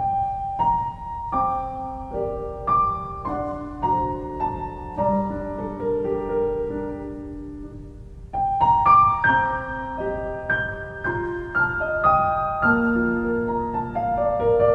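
Solo piano music: a slow, gentle melody of single ringing notes. It fades down about seven seconds in, then picks up again with a fuller phrase.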